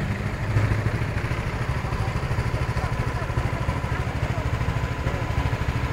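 A small engine idling steadily, with a rapid even pulse.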